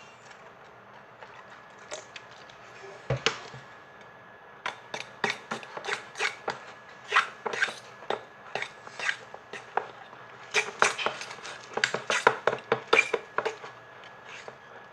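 A utensil clinking and knocking against a bowl, repeated sharp clicks at about two to three a second, typical of stirring slime mix in a bowl. One heavier knock comes first, and the clicks come faster near the end.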